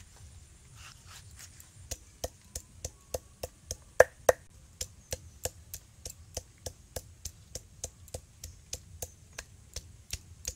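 Ginger being pounded with a hand-held pestle on a grinding slab (shil): sharp, even knocks about three a second, starting about two seconds in, the two loudest near four seconds.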